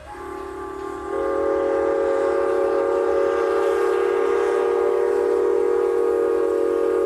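Chime steam whistle of a Lima-built 0-6-0 steam switcher blowing one long blast of several notes together; about a second in a higher note joins and the whistle gets louder, then it holds steady.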